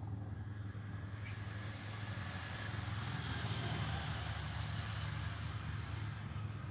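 Road traffic: a steady low engine rumble with a vehicle passing, its noise swelling through the middle and easing off near the end.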